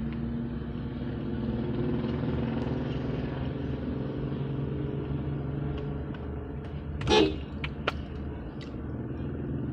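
Steady low hum of a car's engine at idle, with one short car-horn toot about seven seconds in.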